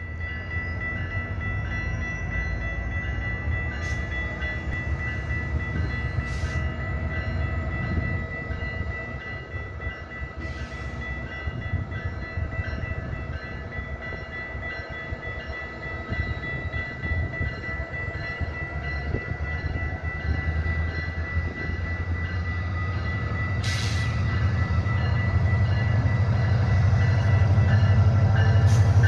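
Level-crossing warning bell ringing steadily while a GO Transit MP40PH-3C diesel locomotive approaches. The train's low rumble grows louder over the last several seconds.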